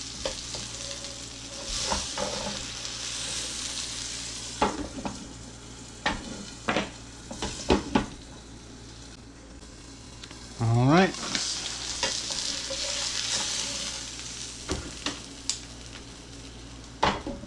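Breaded chicken breast sizzling in butter and olive oil in a skillet, with knocks of the pan lid and tongs, and a short rising squeak about ten seconds in.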